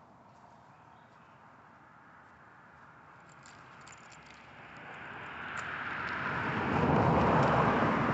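A car driving past: the tyre and engine noise swells from about halfway through and peaks near the end before starting to fade.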